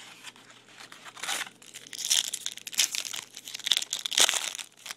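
Foil wrapper of a Topps Chrome trading-card pack crinkling and tearing as it is pulled from the box and opened by hand. The crackle comes in several spells and is loudest near the end.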